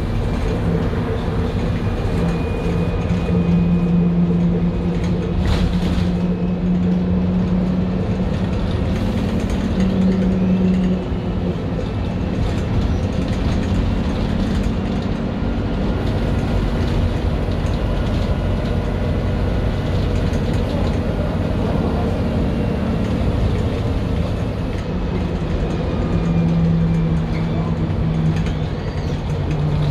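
MAN 18.240LF single-deck bus with a rear-mounted inline-six diesel, heard from inside the passenger saloon: engine and drivetrain running with a steady drone and interior rattles. A strong low engine note fades about eleven seconds in and returns near the end.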